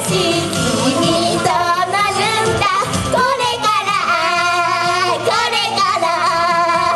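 Young female voices singing a Japanese pop song live over loud pop backing music.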